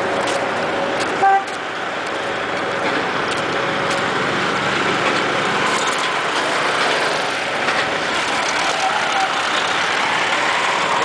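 Steady noise of vehicles and machinery in an industrial yard, with one short horn beep about a second in.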